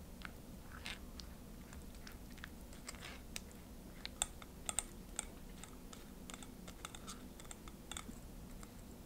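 A spatula pushing thick crème anglaise through a stainless steel mesh sieve: irregular scraping and light clicking on the wire mesh, with a few sharper clicks about four to five seconds in.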